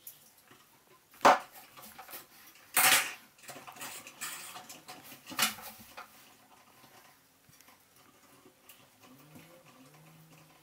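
Metal pliers clinking and scraping on thick household electrical wires as they are twisted together at the wall box. There is a sharp click about a second in, a longer scrape around three seconds, another click about five seconds in, and light ticks between them.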